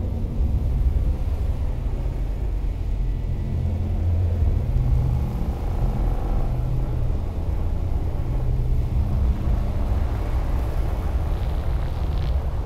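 Low, steady rumbling drone from a horror film's suspense soundtrack, with no beat and no dialogue over it.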